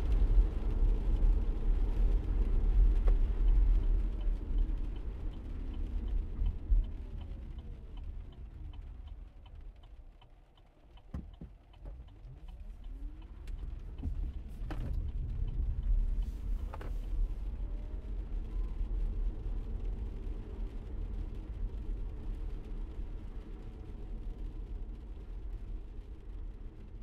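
Low road and engine rumble of a car driving, heard from inside the cabin. About ten seconds in it fades almost away, with a few sharp clicks, then builds back to a steady drone.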